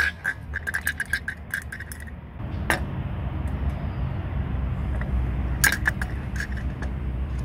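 A ball drops into a small tin bucket with a sharp clink, then rattles against its metal sides in a run of quick clinks that fade over about two seconds. A single knock follows, and later another short run of clinks as the ball rolls about in the bucket.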